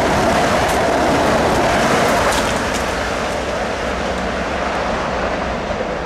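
Long Island Rail Road electric commuter train passing at speed close by: a steady rush of wheel-on-rail noise with light ticks. It eases off a little about halfway through as the last cars go by.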